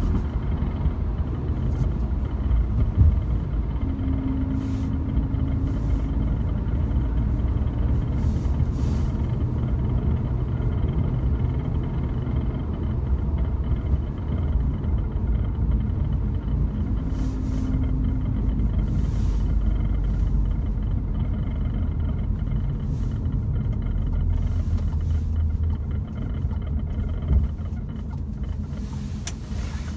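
Steady road and engine noise inside a moving Volkswagen Golf GTI Mk7, with short clicks and taps now and then: the interior rattle that the car has developed.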